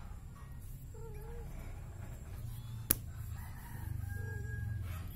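Kittens eating from a plate, with a low steady rumble from the cats that swells about a second in and again near the end. A few faint short calls sound over it, and there is a single sharp click just before the three-second mark.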